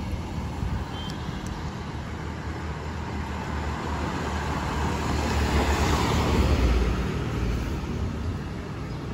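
Steady road traffic noise with a low rumble of vehicles, growing louder for a couple of seconds about six seconds in.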